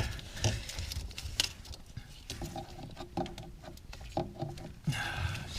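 Small irregular clicks and scrapes of a screwdriver prying at a plastic wiring harness plug, with short squeaky creaks in the second half. The connector is stuck because it is corroded.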